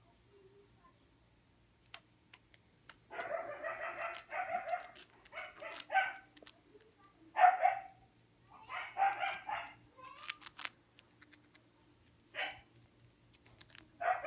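An animal gives several loud pitched calls in bursts of up to about two seconds, the loudest sound here. Between them come short crisp crunches as a Syrian hamster gnaws a crunchy snack chip.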